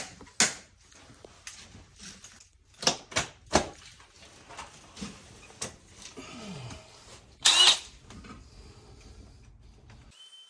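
Clicks and knocks from a telescoping back-support arm being handled and set in place, with a louder clank and a brief ring about seven and a half seconds in.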